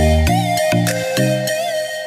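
Background music: an electronic track with a steady beat, a stepping bass line and a high, wavering synth melody. The bass drops out about halfway through.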